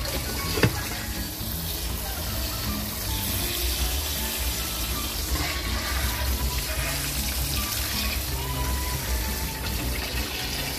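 Kitchen tap running into a stainless steel pot as raw shrimp are rinsed in it, with background music underneath. There is one sharp knock about half a second in.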